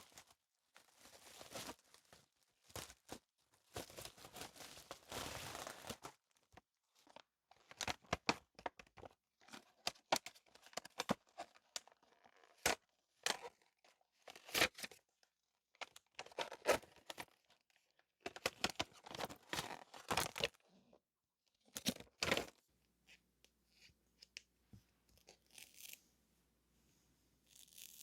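Paper stationery and its wrapping being unwrapped and handled in irregular short bursts with brief pauses. The bursts grow sparse and quieter over the last five seconds or so.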